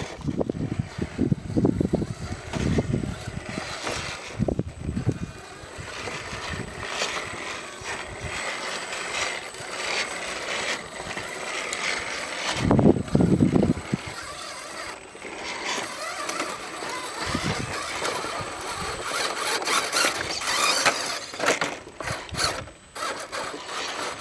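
Radio-controlled scale rock crawlers' electric motors and geartrains whining as the trucks creep over rough rocks. A few heavy low rumbles come in the first seconds and again about halfway through.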